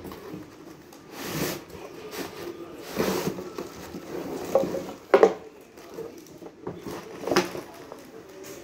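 Cardboard box being handled: irregular rustles and scrapes of cardboard, with a sharper knock about five seconds in.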